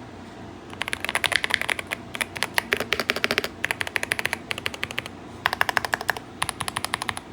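Keychron K4 HE keyboard being typed on, its Nebula linear switches giving fast runs of keystroke clicks that start about a second in, with a few short pauses between bursts.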